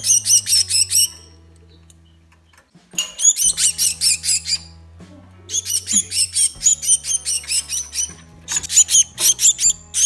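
Fledgling titmouse giving rapid, high-pitched begging calls, about five a second, in runs broken by pauses, the first pause about two seconds long. The young bird is hungry and begging to be fed.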